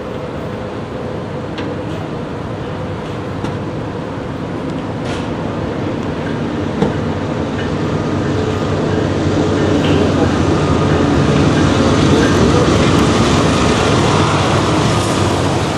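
Steady rumble of railroad diesel power running beside the circus train, growing louder over the second half.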